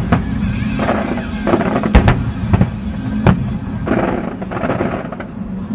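Aerial fireworks bursting in quick, irregular succession, a string of sharp bangs with the loudest about two seconds in, over a steady low drone.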